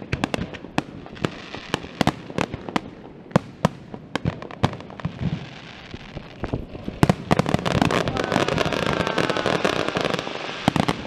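Fireworks display: aerial shells bursting in rapid, irregular succession, many sharp bangs. About seven seconds in, the bursts thicken into a louder, dense continuous crackle that eases near the end.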